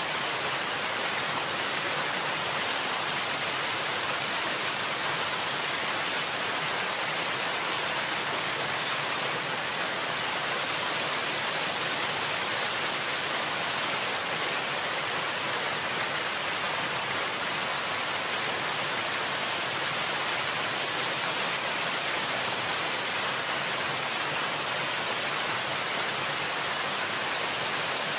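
Steady rushing of falling water, an even hiss that never pauses or changes.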